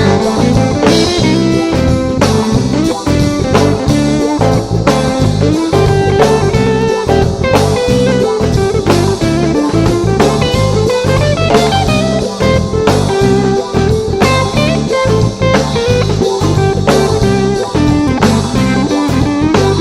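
Band playing an instrumental passage of a song: a guitar carries a gliding melody over a steady drum-kit beat, with no singing.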